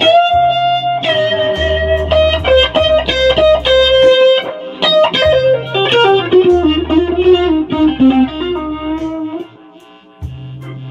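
Stratocaster-style electric guitar playing a lead line of held and bent notes over low bass notes, with the melody stepping downward in the second half. The music briefly drops out near the end.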